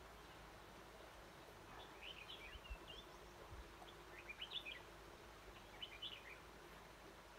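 Red-whiskered bulbul singing faintly: three short chirping phrases about two seconds apart.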